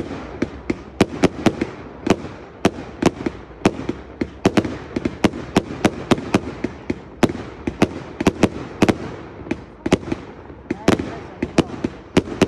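Fireworks display: a rapid, irregular string of sharp bangs, about three or four a second, as small shells fired in quick succession burst overhead.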